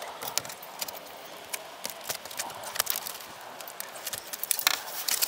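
Irregular light clicks and knocks as a framed solar panel is handled and set down onto aluminium roof rails, mixed with footsteps in flip-flops on asphalt shingles; a louder scrape or knock comes near the end.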